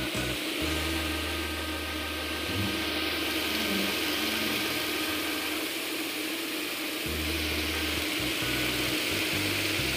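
Miyako electric fan running at speed with a homemade propeller cut from a plastic Aqua water bottle: a steady rush of air over a motor hum.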